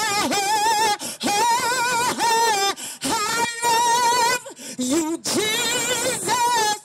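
A woman singing a gospel worship song unaccompanied, drawing out long wordless notes with vibrato in four phrases of one to two seconds each. The singing stops abruptly near the end.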